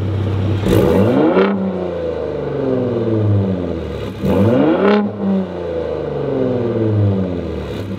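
Stock Gen 3 Ford Raptor's 3.5-litre EcoBoost V6 revved twice through its active exhaust in normal mode. It idles, climbs quickly about a second in and again about four seconds in, and each time settles back slowly to idle.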